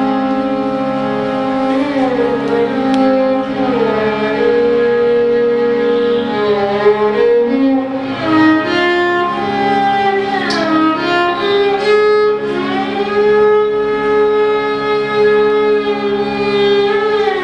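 Violin playing a slow Indian raga melody, holding long notes and sliding between them, over a steady low drone tone.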